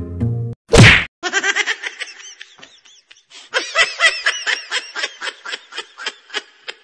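A very loud sudden hit about a second in, then a long run of rapid, high-pitched laughter in quick repeated bursts.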